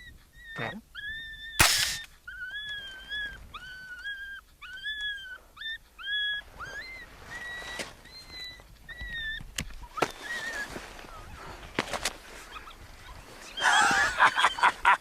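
A string of short, high-pitched yelping cries, each rising then falling, repeated many times, with one loud sharp crack of a suppressed rifle shot about two seconds in and a few fainter cracks around ten to twelve seconds. A loud noisy burst follows near the end.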